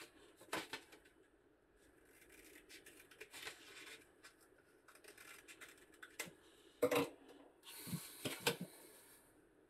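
Scissors cutting through a sheet of thin card in a run of short crunchy snips. Just before seven seconds there is a sharp knock, the loudest sound, and near the end about a second and a half of scratchy rubbing on the card.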